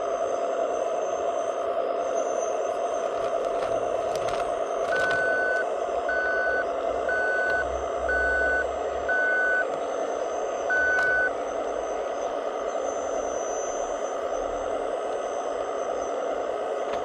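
RC scale hook-lift truck running steadily as its hook arm pulls a container aboard. About five seconds in, its reversing beeper beeps five times about a second apart, then once more after a short pause, as the truck backs up.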